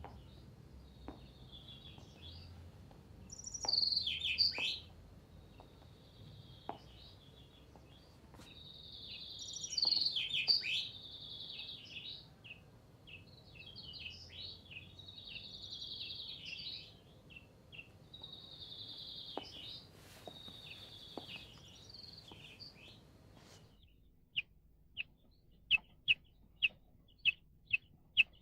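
Caged common chaffinch singing: several song phrases a few seconds apart, two of them ending in a louder flourish. Near the end the song gives way to a run of short, sharp call notes, about two a second.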